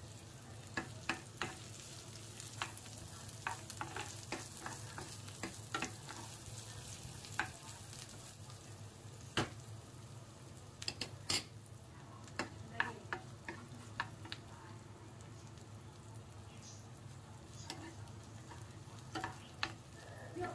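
Chopped red onion and garlic sizzling in oil in a nonstick frying pan, with scattered sharp clicks throughout. A metal spoon stirs them against the pan near the end.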